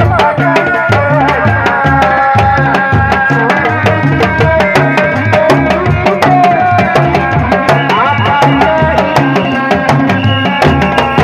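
Sundanese dogdog drum ensemble playing a steady interlocking rhythm: large frame drums slapped by hand and small laced drums struck with sticks. A wavering melody is held over the beat.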